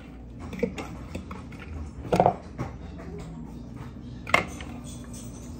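Kitchen handling noises from seasoning raw chicken drumsticks by hand: a louder rustling knock about two seconds in, then a sharp clink of a fork against the bowl a little over four seconds in.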